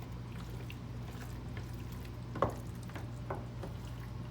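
Sauce-coated penne pasta with chicken being poured and scraped into a baking dish: soft wet squishing with scattered small clicks, one sharper knock about two and a half seconds in.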